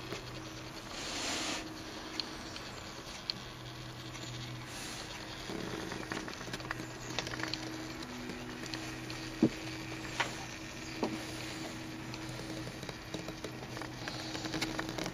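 Steady low hum with scattered small clicks and a brief rustle about a second in, typical of a camera being handled in a quiet workshop room.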